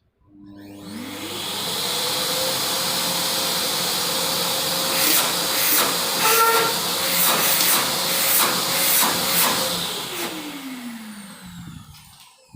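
AmazonBasics 21-litre 1400 W vacuum cleaner switched on for a test run: the motor spins up to a steady whine over rushing air, which surges louder several times in the middle. It is then switched off and winds down with a falling whine.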